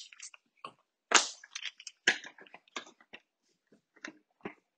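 Plastic bagging crinkling and cardboard and plastic game pieces being handled, in an irregular string of short crackles and taps, the loudest about a second in.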